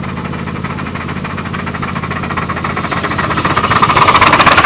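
Auburn Valley 401, a 1960 Little Engines 7.5-inch gauge live-steam 4-8-4 locomotive, running toward and past the listener with rapid, even exhaust beats. It grows louder as it nears and is loudest about four seconds in, as it passes close by.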